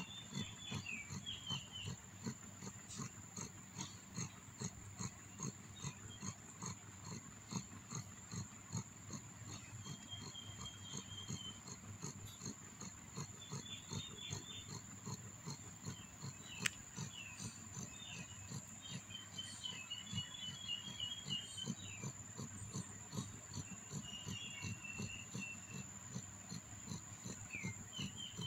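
Mother cat purring steadily as a rapid low pulsing while her newborn kittens nurse, with faint short high chirps now and then and a thin steady high-pitched whine underneath.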